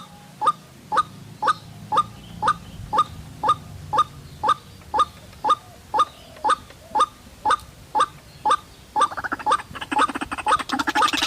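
White-breasted waterhen (ruak-ruak) calling: a monotonous series of short, sharp notes repeated evenly about twice a second, breaking into a faster rapid run of notes near the end.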